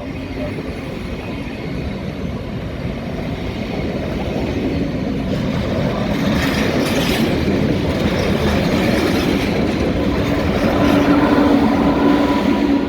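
A train running past on the station tracks, a dense rolling rumble that grows steadily louder, with a steady whine coming in during the second half.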